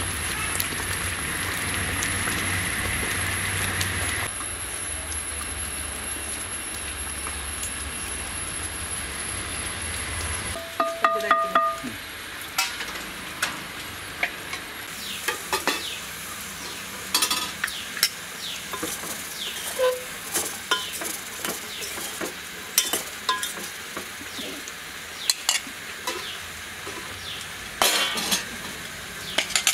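A pot of dark tamarind liquid boiling hard, a steady bubbling hiss. About ten seconds in this gives way to a metal ladle in a steel bowl: a ringing clink, then scattered taps and scrapes as it stirs.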